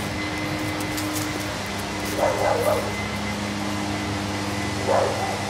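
Dogs barking during rough play-wrestling: a short run of barks a little over two seconds in and a single bark near the end, over a steady hum.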